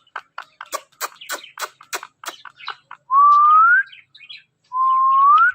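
Ringneck parrot making a quick run of sharp clicks, then two clear whistles that each rise in pitch near the end.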